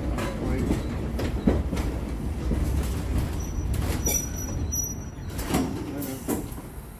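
J.G. Brill-built trolley car rolling along the track, heard from inside its cab: a steady low rumble of wheels and running gear with a few clacks over rail joints and a brief high wheel squeal about four seconds in. The rumble fades near the end as the car slows.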